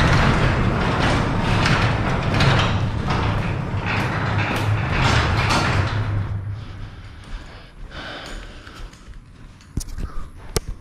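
Sectional garage door rolling up its steel tracks with its opener trolley disengaged by the emergency release. Its rollers rumble loudly for about six seconds and then die away, with a couple of light clicks near the end.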